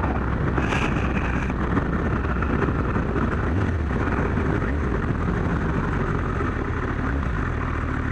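Kawasaki GPZ1100 motorcycle's inline-four engine running steadily on the move, with wind rushing over the microphone.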